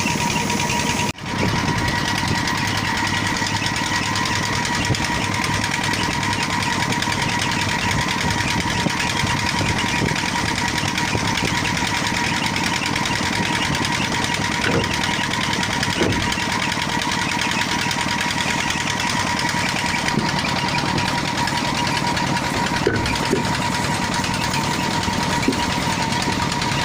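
An engine or motor running steadily, with a steady whine in it and a brief cut-out about a second in.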